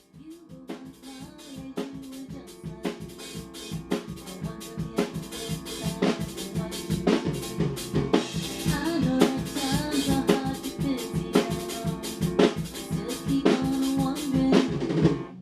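Rock drum kit playing a steady groove of kick, snare and rimshots over sustained guitar notes. It fades in at the start and builds in loudness, then cuts off abruptly at the end.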